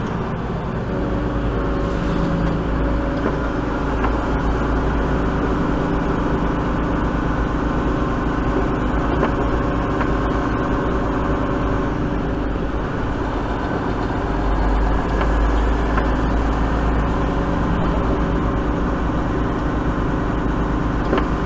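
Mack semi tractor's diesel engine running steadily, heard from inside the cab as the truck rolls along slowly, with road noise under it; the low rumble swells a little about two-thirds of the way through.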